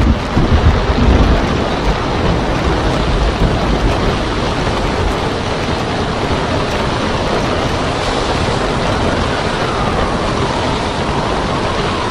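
Storm wind and heavy surf breaking on a rocky shore: a loud, steady rush of noise, heaviest in the low end during the first couple of seconds.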